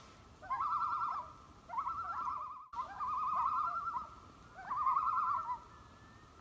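A bird calling in four quavering phrases, each about a second long, with a rapid wavering in pitch.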